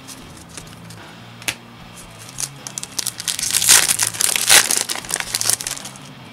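Foil Yu-Gi-Oh booster pack wrapper crinkling and tearing as it is ripped open, in a run of crackles loudest about three to five seconds in.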